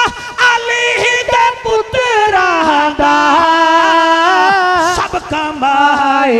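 A man singing an unaccompanied devotional refrain, drawn out into long wavering melismatic notes that slide down in pitch partway through, with scattered sharp percussive hits.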